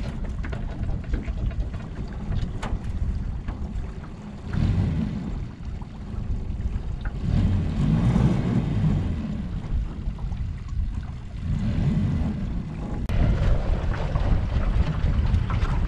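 Wind buffeting the microphone, a low rumble that swells and eases in gusts several times.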